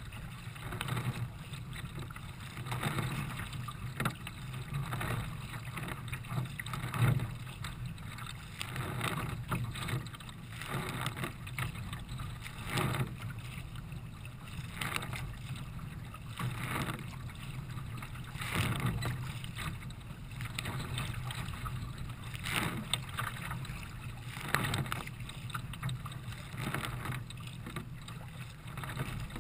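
Racing kayak under way in choppy water: rhythmic paddle-stroke splashes about every two seconds over a steady wash of water against the hull.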